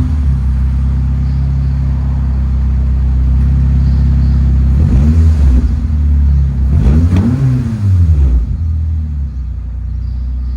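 Honda R18 1.8-litre four-cylinder car engine with the muffler deleted, running steadily and revved up and back down twice, about five and seven seconds in.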